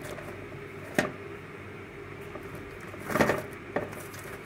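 Freshly baked semitas, flaky spiral pastry rolls, being picked up and handled on a metal baking tray: a sharp knock about a second in, then a short cluster of light knocks and rustles around three seconds in, over a steady low hum.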